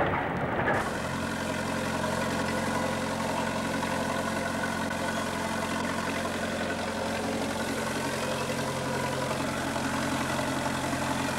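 Steady engine hum of an irrigation sprinkler machine running, with the hiss of water spraying from its overhead boom.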